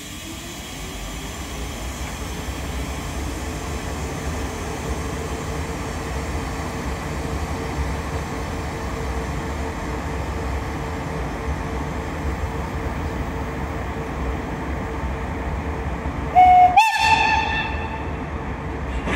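A class 110 electric locomotive stands with a steady hum; one tone in the hum rises in pitch over the first couple of seconds and then holds. About sixteen seconds in, its horn gives a short, loud two-tone blast, lower then higher: the signal before it pulls away.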